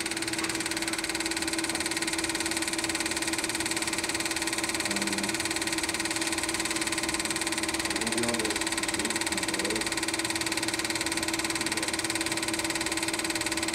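Elmo Super 8 film projector running: a steady motor hum with the even mechanical whir of the film transport.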